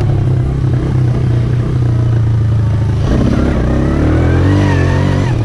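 Four-wheeler (ATV) engine running steadily, then revving up about three seconds in, its pitch rising over the next couple of seconds as it picks up speed.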